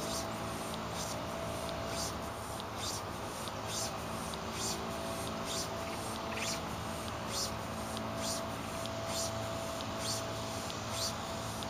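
Small hand pump inflating an air sleeping pad: a short hiss of air with each stroke, about once a second, over a steady low background hum.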